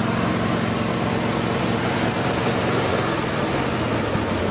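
The 1979 Chrysler New Yorker's V8 engine running steadily, just after being started; the owners think it has no exhaust system on it. The engine note drops lower near the end.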